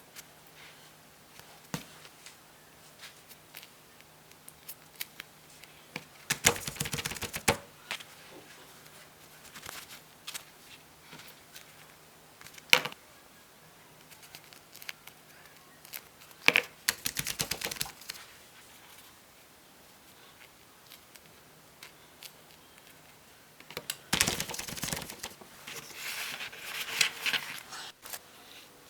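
Small plastic fidget toys handled by hand: scattered clicks and taps, with three stretches of rapid clicking and rustling, the longest near the end.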